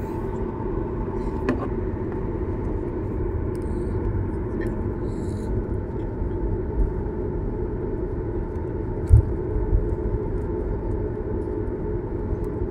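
Jet airliner cabin noise while taxiing: the engines' steady hum at low power over a constant rumble. A single low thump about nine seconds in.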